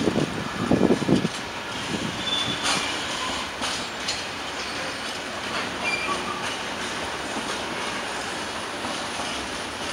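Freight train wagons rolling past: steady rolling noise with clatter of wheels over the rail joints and a few heavy knocks in the first second or so. A couple of brief, faint high squeals come from the wheels.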